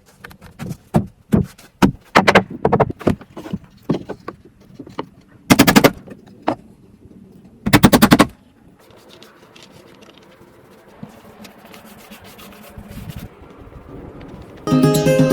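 Building work on wood: scattered sharp knocks and taps, and two short, loud bursts of rapid rattling impacts, then acoustic guitar music starting near the end.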